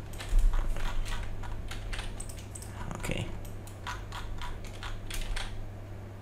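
Irregular clicking of computer keyboard keys and mouse buttons while working in modelling software, over a steady low hum.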